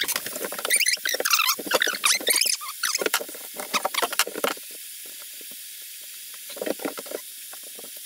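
Filleting knife slicing and scraping through cod on a cutting board: a quick run of squeaky, scratchy strokes that stops about four and a half seconds in, leaving a low steady hiss with a few faint scrapes near the end.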